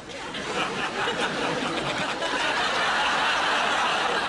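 Audience laughter building to its loudest about three seconds in.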